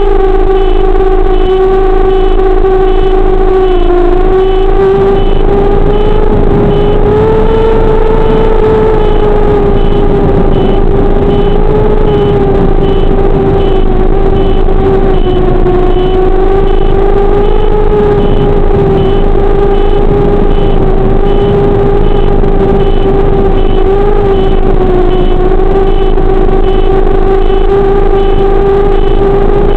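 Electric motor and propeller of a small FPV plane running steadily in cruise, a loud whine whose pitch wavers only slightly, with a brief dip about four seconds in. A faint high pulsing tone repeats evenly throughout.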